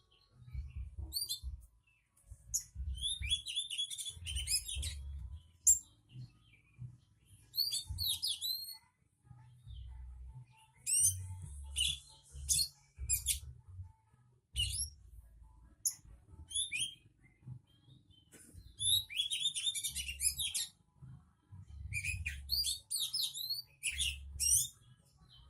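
A songbird singing in quick bursts of high chirps and trills, phrase after phrase with short pauses between them.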